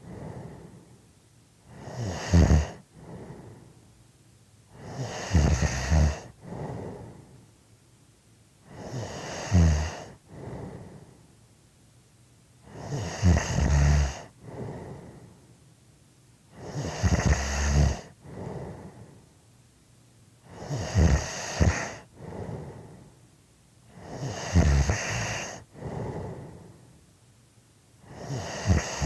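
A person snoring: a loud snore roughly every three to four seconds, about eight in all, each followed by a softer breath.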